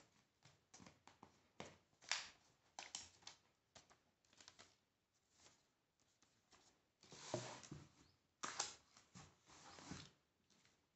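Handling noises of an iPad being unboxed: the tablet in its protective paper wrap being lifted out of the cardboard box, and the box and lid being set on a table. Scattered taps and knocks with short rustles, a longer rustle about seven seconds in.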